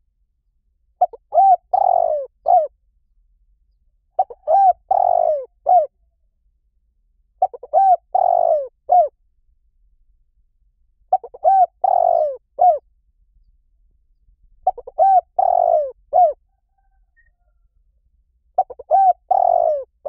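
Spotted dove cooing: six repeated phrases about every three and a half seconds. Each phrase is a few quick short notes, then a longer falling coo, then a short closing note.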